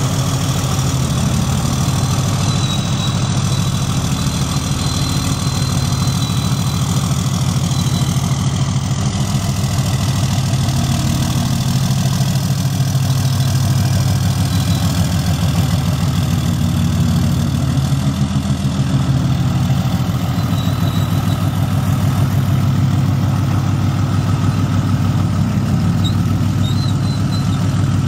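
2007 Dodge Ram 2500's 6.7-litre inline-six Cummins turbo diesel idling steadily and evenly, with no revving, as the truck backs slowly.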